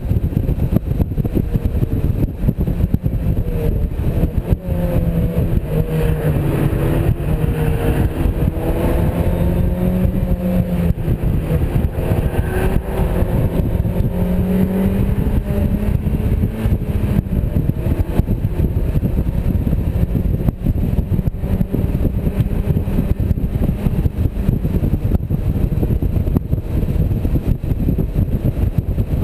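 Second-generation Mazda MX-5 Miata's four-cylinder engine under way, heard from the open cockpit with the top down, under heavy wind rumble. The engine note rises and falls in pitch for several seconds near the middle.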